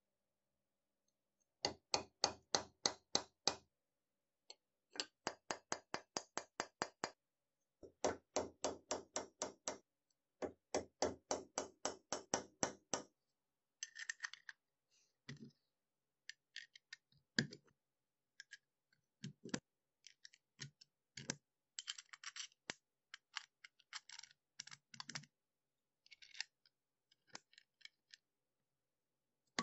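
Quick, even runs of light sharp taps, about six a second, in four bursts of two to three seconds, followed by scattered single clicks and taps of small metal padlock parts being handled and fitted.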